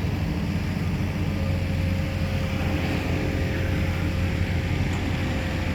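Steady low rumble of motor vehicles on the highway, with a faint steady hum joining about a second in.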